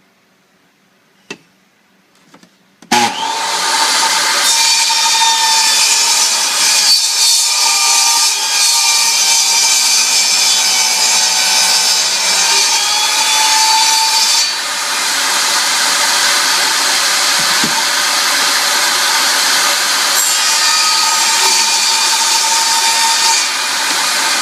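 Table saw switching on about three seconds in and running loudly and steadily, its blade cutting through a laminate floor plank.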